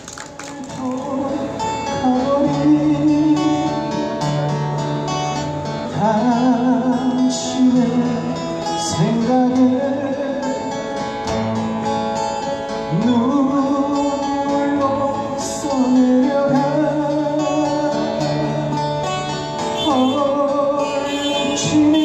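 Two acoustic guitars playing with a man singing into a microphone, amplified through PA speakers.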